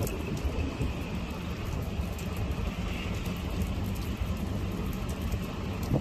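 Steady typhoon rain hiss, with low wind noise on the microphone.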